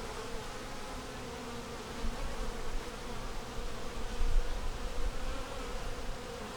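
Honey bees buzzing in a steady hum around an opened hive, with a few low bumps about two and four seconds in.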